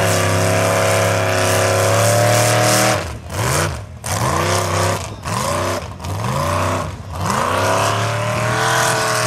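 Lifted mud truck's engine held at high revs, then blipped in four quick rev bursts about a second apart, then held high again as the tyres churn through mud.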